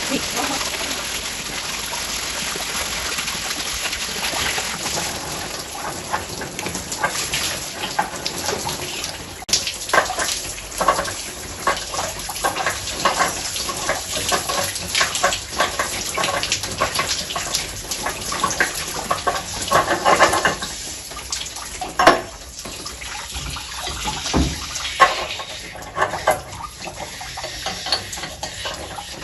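Water running and splashing during work on a water heater tank, with scattered metallic clinks and knocks of tools and fittings. The splashing is steadiest in the first several seconds, and there is one sharp knock a little past the middle.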